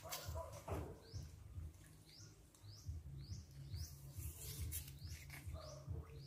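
Faint high chirps repeating about twice a second, with a couple of sharp knocks near the start.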